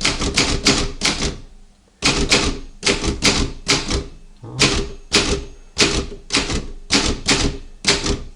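Imperial M50 manual typewriter being typed on: its typebars strike the platen in over twenty sharp clacks, a quick run of about five, a short pause, then a steady run of about two to three strokes a second.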